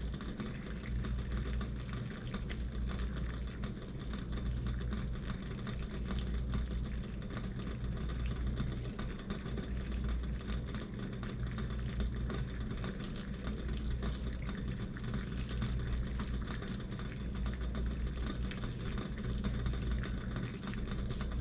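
Water at a full rolling boil in a stainless steel pot on an electric stovetop: a steady rumbling bubble with dense fine popping.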